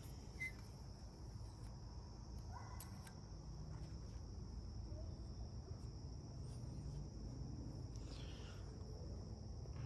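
Steady high-pitched trilling of insects in the background, with a few faint clicks and taps.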